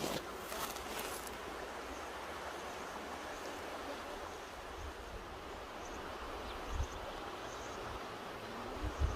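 Mountain river rushing with a steady, even sound of flowing water. A few brief low thumps come through it, the strongest just before the end.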